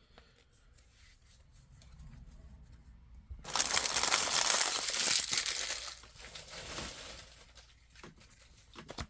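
Trading card pack wrapper being torn open and crinkled: a loud tearing rustle starting about three and a half seconds in, lasting a couple of seconds and then trailing off into softer crinkling.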